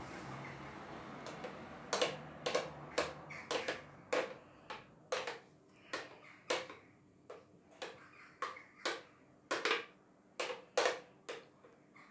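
A metal spoon clinks and scrapes against the spout of a blender jug, pushing a thick avocado-banana blend out into a glass. From about two seconds in there is a run of sharp, irregularly spaced clinks, roughly one or two a second.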